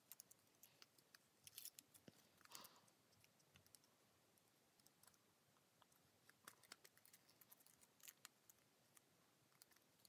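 Near silence with scattered faint, crisp ticks and crackles of origami paper being handled and creased.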